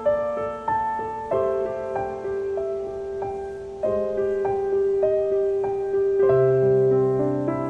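Background music: slow, gentle piano playing held chords, a new chord struck every couple of seconds, with a deep bass note joining near the end.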